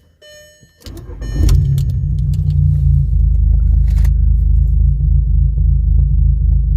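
Volkswagen Jetta Mk4's 2.0-litre four-cylinder engine starting about a second in and settling into a steady, low, pulsing idle. The idle carries a slight misfire that new spark plug wires have not cured.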